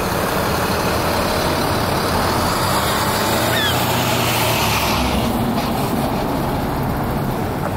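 A school bus driving past close by, its engine running, loudest about four to five seconds in, amid the noise of passing car traffic.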